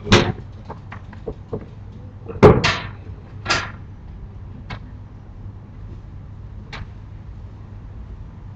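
A run of loud bangs and clatters, like a door or shutter being knocked or moved: a sharp bang at the start, a heavier double bang and rattle about two and a half seconds in, another a second later, then a couple of light clicks.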